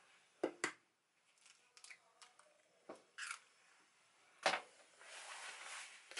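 An egg cracked against the rim of a stainless steel mixing bowl: two sharp taps close together, then faint small clicks of handling. About four and a half seconds in there is another sharp knock and a short soft rustle.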